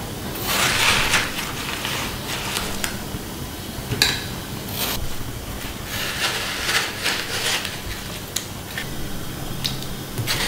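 Yellow watermelon flesh being broken out of its rind and dropped into a glass dish: irregular wet scraping and rubbing, with a sharp knock about four seconds in.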